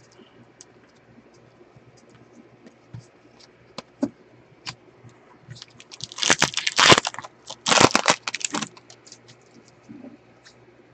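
A foil baseball card pack being torn open by gloved hands: two loud rips of the wrapper about a second apart past the middle, with light ticks of cards and wrapper being handled around them.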